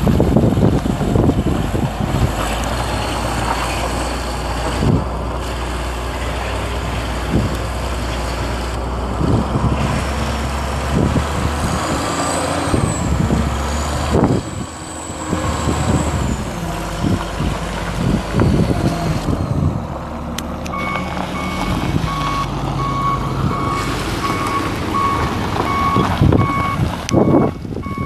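A Chevrolet Silverado 3500 cab-and-chassis truck with a 6.0-litre gas V8 runs as it is driven over gravel, with wind buffeting the microphone. About two-thirds of the way in, a reversing alarm starts beeping in an even rhythm and keeps on.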